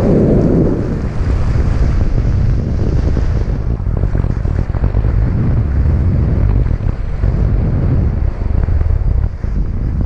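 Airflow of a paraglider in flight buffeting the microphone: a steady, low, fluttering wind noise, a little heavier in the first second.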